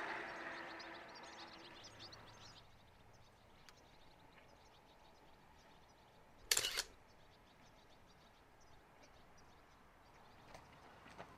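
A camera shutter fires once, a sharp double click about six and a half seconds in, over faint scattered high chirps.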